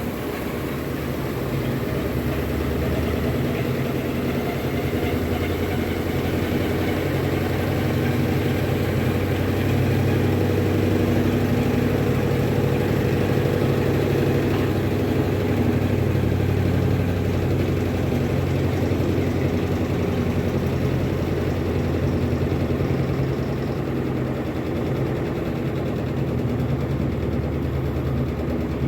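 Electrolux LTD15 top-load washing machine running its wash cycle: a steady motor hum that swells and eases slightly without stopping.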